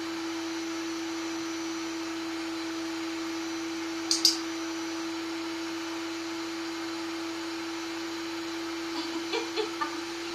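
Canister vacuum cleaner running steadily with a constant hum. There is a short, sharp, high clink about four seconds in and a few faint short sounds near the end.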